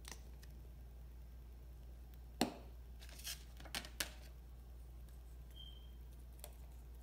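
A few light clicks and taps as a small plastic bottle of acrylic paint is handled and set down on a tiled counter. The sharpest click comes about two and a half seconds in, with a few softer ones over the next second or so, over a low steady hum.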